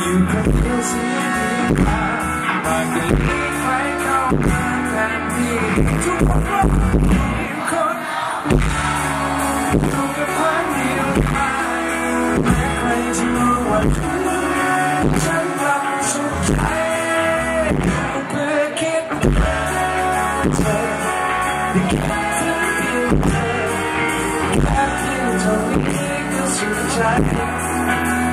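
Live band performance of a slow Thai pop song: a male lead voice singing over electric guitar and bass guitar, amplified through a PA, with a steady beat.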